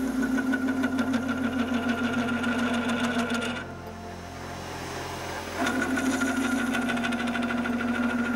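WEISS WBL290F benchtop metal lathe running a thread-cutting pass, its spindle and change-gear train giving a steady whine with rapid fine clicking. The sound drops away for about two seconds near the middle, then resumes.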